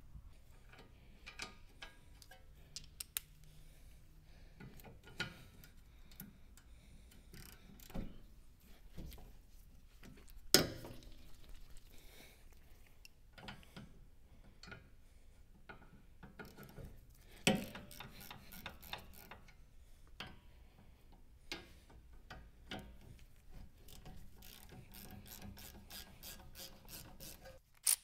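Hand-tool work on a car's brake assembly during a brake rotor replacement: a socket ratchet clicking, with scattered metal clinks and several sharp knocks. A quick run of ratchet clicks comes near the end.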